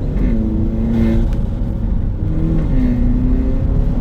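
Audi A3 1.8 TFSI turbocharged four-cylinder engine with an aftermarket cold air intake, heard from inside the cabin while accelerating under boost. Its note climbs and drops back in pitch a couple of times as it pulls through the gears.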